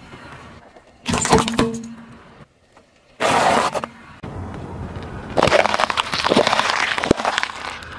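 A car tyre crushing objects on asphalt in several short clips, each with crunching, cracking and snapping, separated by abrupt cuts. In the last few seconds the tyre crushes bell peppers with a long run of crackling.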